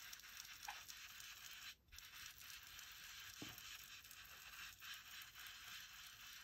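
Faint scratching and rubbing of ink being worked onto a paper journal page, with a few small ticks.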